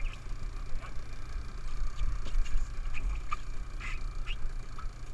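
Steady low rumble of wind and a boat motor on a small inflatable boat at sea, with several short squeaks in the second half.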